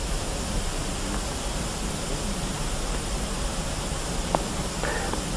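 Steady hiss with a low hum underneath, the recording's own background noise, with a faint tick about four seconds in.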